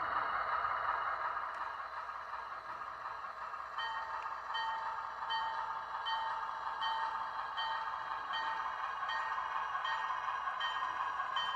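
Bachmann Alco SW4 model switcher running with a steady whine. About four seconds in, a bell-like ding joins it and repeats about every three-quarters of a second.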